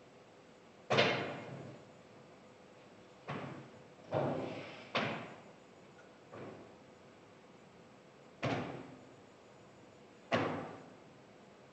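A series of sharp thuds or bangs at irregular intervals, about seven in all, each ringing out briefly in a hard-walled room.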